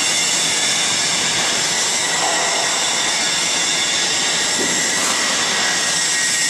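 Roll forming machine running: a steady mechanical drone of motors and rollers with several high, steady whines over it.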